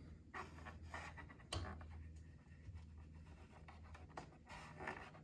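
Thermostat knob of an Air Choice oil-filled radiator heater being turned by hand: faint scraping of the dial with a few soft clicks, the clearest about a second and a half in, as the thermostat switches the heating element off and on.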